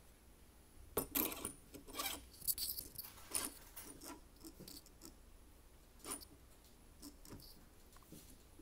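Metal clinking and rattling as a compact router is lowered by hand into the aluminium clamp ring of a CNC machine's tool mount. The clinks come thick and fast for a few seconds, starting about a second in, then give way to a few lighter knocks.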